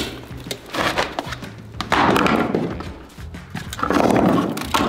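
Hand work on the foam of an insulated concrete form wall: a plastic electrical box and cable scraping and rubbing against the foam twice, each time for about a second, with a few light knocks.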